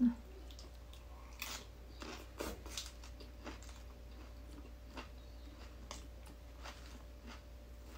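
Close-up chewing of a mouthful of spicy cucumber salad, with irregular crisp crunches about every half second to a second. A brief low hum comes at the very start.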